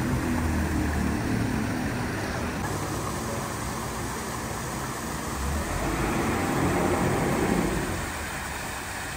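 Narrowboat's diesel engine running at low revs as the boat moves slowly, growing louder for a couple of seconds about two-thirds of the way through.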